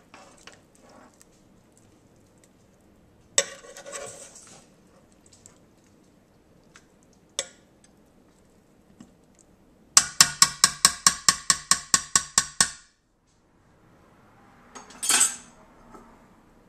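A metal serving utensil scraping and clinking against the pot of a Ninja cooker while turning chicken in sauce. About two-thirds through comes a fast, even run of about fifteen ringing metal taps lasting nearly three seconds, which cuts off suddenly; one more clatter follows near the end.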